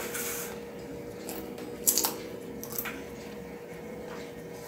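Metal spoon scooping soft boiled moranga squash pulp with wet squishing scrapes, and knocking against a stainless steel bowl in a few sharp clinks as the pulp is tapped off.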